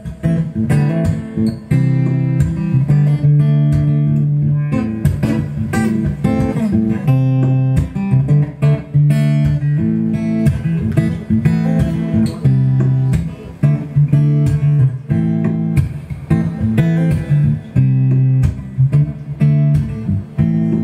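Solo acoustic guitar playing an instrumental break between sung verses, chords picked and strummed with frequent note attacks.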